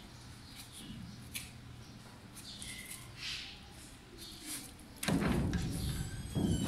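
Knife faintly scraping and slicing through goat meat, with a few light clicks. About five seconds in, a loud low rushing noise lasts about a second, and a shorter one comes just before the end.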